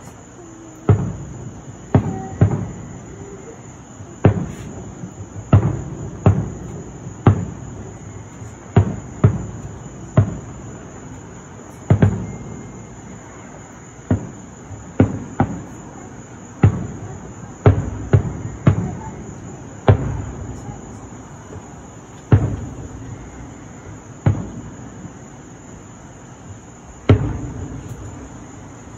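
Aerial fireworks shells bursting at a distance: about twenty booms at irregular intervals, each trailing off in an echo. A steady high insect chirring runs underneath.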